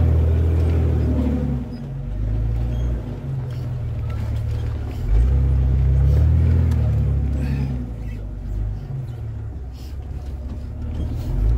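Off-road Jeep's engine working as it crawls over slickrock, heard from inside the open vehicle; the revs swell near the start and again about five seconds in, then ease off.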